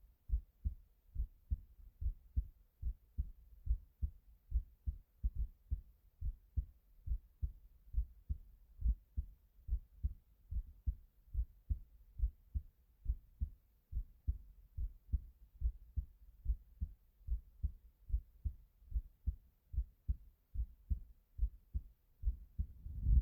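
Heartbeat sound effect: deep, evenly paired lub-dub thumps repeating at a steady rhythm. Near the end a low rumble swells in under the beats.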